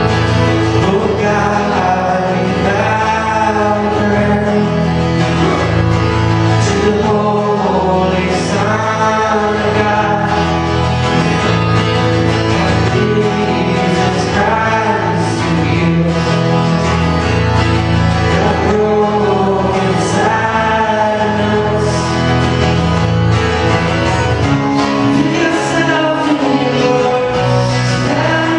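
Live worship band playing a song: singing over acoustic guitar and band accompaniment.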